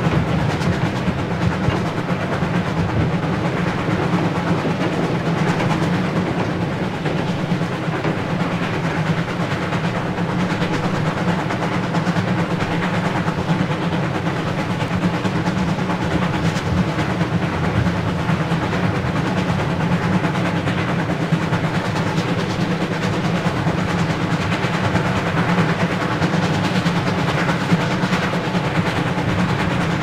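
Coal-fired 4-8-4 steam locomotive No. 2101 running at speed with its train, a steady dense rumble with a fast drumming rhythm, dubbed from a vinyl record.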